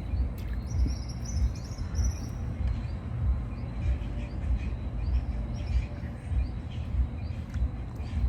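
Birds chirping in short, repeated high phrases, most busily in the first couple of seconds. A faint steady high tone and a low, uneven rumble run underneath.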